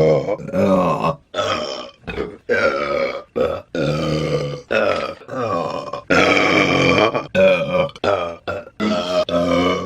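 A woman burping loudly over and over, about a dozen burps in quick succession. Short ones are mixed with longer drawn-out ones, the longest lasting over a second about six seconds in.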